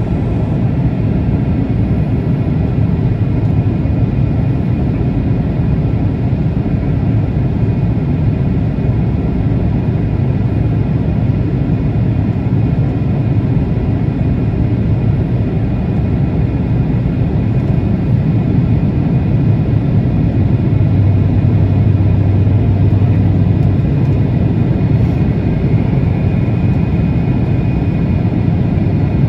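A jet airliner's steady engine and airflow rumble, deep and continuous, with a faint steady whine above it. It swells slightly about two-thirds of the way through.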